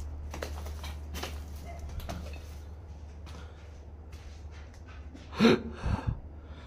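A man sniffing sharply once, about five and a half seconds in, followed by a couple of low thumps, over a steady low hum with faint scattered rustles and clicks.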